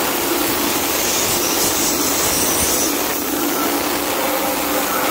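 A steady, loud rushing hiss with a faint hum underneath, from running workshop machinery.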